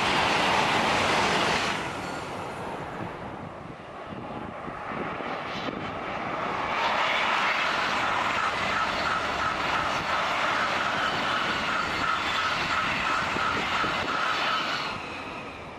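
TGV high-speed trains passing at speed with a rushing sound of air and wheels on rail. The first fades away about two seconds in as its tail passes. A second one, a double unit, builds up and passes loudly with a steady high whine, then fades near the end.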